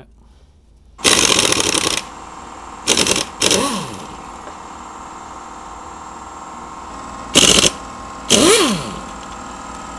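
Pneumatic impact wrench hammering in bursts: a long one about a second in, two short ones around three seconds, and two more near the end, undoing the flywheel and crankshaft pulley bolts of a MINI Cooper S engine. In some bursts the tool's pitch rises and falls as it spins freely. A steady hum sits underneath between the bursts.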